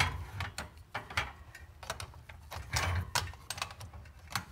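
Handling noise: scattered clicks, knocks and rustling as objects are moved about by hand, with a louder rustle and knock about three seconds in.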